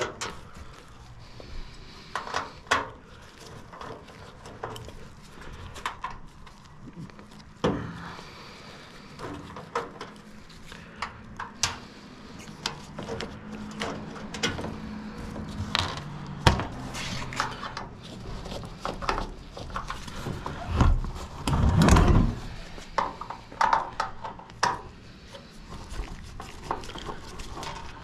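Hand tools working screws out of a microwave oven's sheet-metal housing: scattered small clicks, clinks and scrapes of a security Torx key and a screwdriver on the screws and casing. There is one louder, longer handling noise about three-quarters of the way through.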